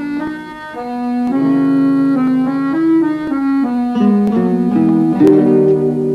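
Background music: a melody of changing notes played over held lower notes.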